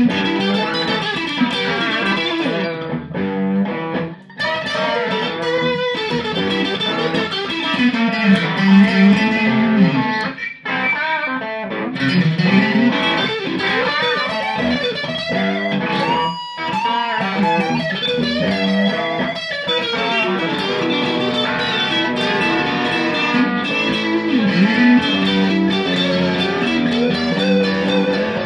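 Fender Sixty-Six electric guitar playing bluesy lead lines with repeated string bends, over a looped rhythm part, through a crunch overdrive tone.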